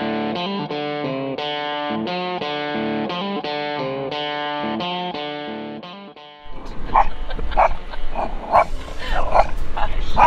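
Plucked guitar music plays for about six seconds and fades out. Then a small dog barks in quick short barks, about two a second, at cattle outside, over the low rumble of a Jeep on a dirt road, heard inside the cabin.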